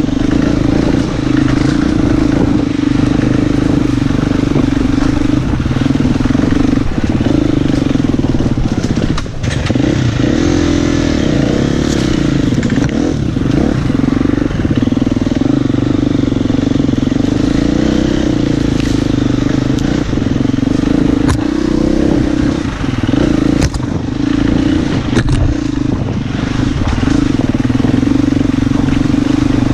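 Husqvarna FE 250 four-stroke single-cylinder enduro motorcycle engine running under load on a rocky trail, mostly at a steady pitch. About nine seconds in it briefly drops, then rises and falls for a few seconds. Stones clatter and knock under the tyres.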